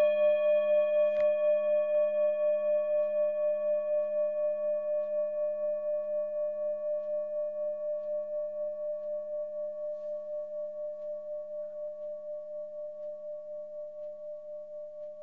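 Held final note of an electric viola with live electronics: one steady tone over a low drone, pulsing evenly a few times a second and slowly fading away.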